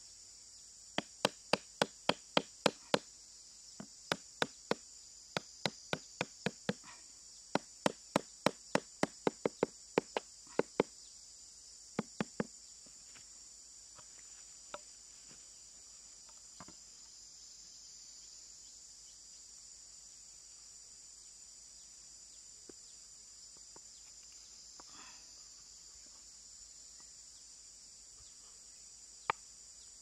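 Steady chirring of crickets and other insects, with runs of sharp knocks at about four a second through the first dozen seconds, then a few single knocks.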